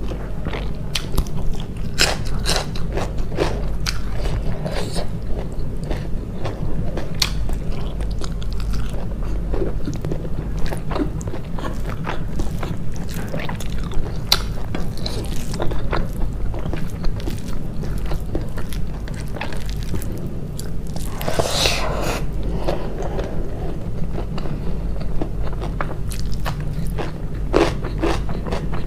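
Close-miked mukbang eating: a person biting and chewing with many small crunches and wet mouth clicks over a steady low hum. One longer, noisier sound comes about two-thirds of the way through.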